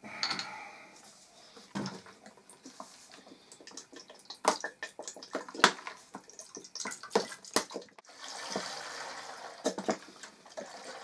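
Vinegar being poured into a cooking pot: a pouring hiss at the start and again about eight seconds in, with knocks and clinks of the bottle and pot in between.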